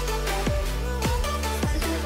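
Electronic background music with sustained synth tones and a bass that sweeps down in pitch about twice a second.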